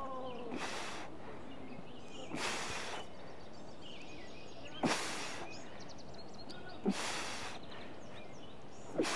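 A man's forceful, breathy exhalations, about one every two seconds, paced with the reps of a lying kettlebell ab exercise, where each effort pushes the air out.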